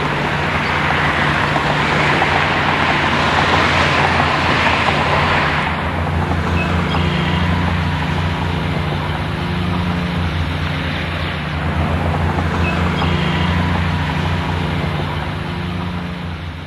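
Road traffic noise: a steady hiss of tyres and engines with a low hum beneath, louder in the first six seconds and then easing off.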